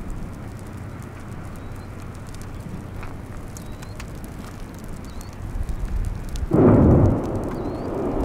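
Thunderstorm noise: a low steady rumble of wind and rain, then a sudden loud rumble about six and a half seconds in that fades over the next second or so.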